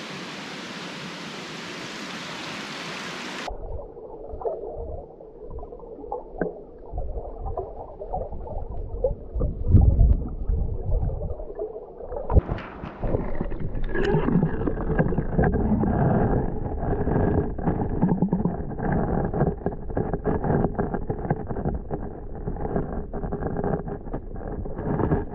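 Steady hiss of a mountain creek for a few seconds. Then the sound turns suddenly muffled and dull, as the creek is heard through a camera submerged in it: gurgling and rumbling water with scattered knocks, likely the housing bumping the rocks.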